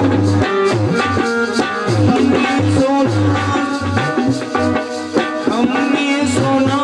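Devotional bhajan music with a steady, even beat, sung into a microphone by the katha singer over the accompanying instruments.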